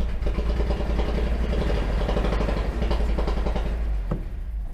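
1975 Datsun 280Z's fuel-injected straight-six running unevenly after a hard start, then beginning to die away near the end. The owner suspects it is struggling to get fuel through a clogged fuel filter.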